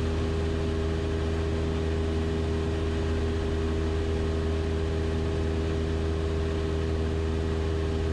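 Cessna 172 Skyhawk's piston engine and propeller droning steadily, heard from inside the cabin.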